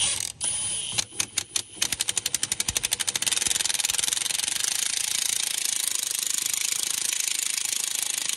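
Milwaukee Fuel cordless impact wrench hammering on the pinion nut of a rear differential, the pinion yoke held with a pipe wrench. A few short trigger pulls come first, then fast hammering from about two seconds in that settles into a steady rattle.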